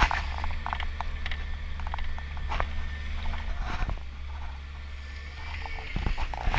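Off-road vehicle driving slowly over a rocky dirt trail: a steady low rumble with scattered clicks and knocks as the mud tires roll over stones, getting busier and louder near the end.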